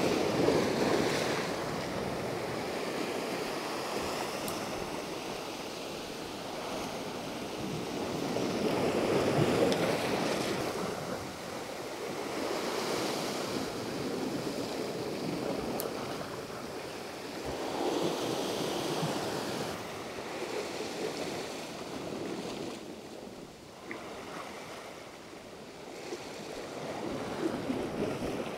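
Sea waves surging and washing against a rocky shore in a heavy swell, swelling and fading every few seconds.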